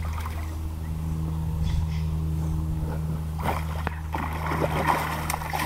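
A big hooked rainbow trout splashing and thrashing at the lake surface, the splashing thickening into a busy burst about three and a half seconds in, over a steady low engine hum.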